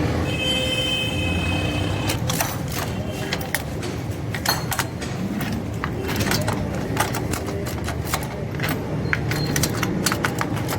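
Metal hand tools clicking and clinking irregularly as spark plugs are taken out of the engine, over a steady low hum. A short high-pitched squeal sounds near the start.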